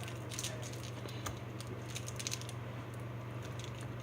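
Scattered light clicks and crackles of small items being handled, over a steady low hum.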